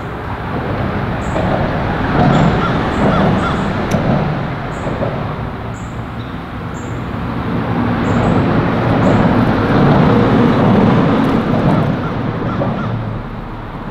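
Traffic crossing the road bridge overhead, a loud rumbling hum echoing under the deck. It swells twice and is loudest about ten seconds in.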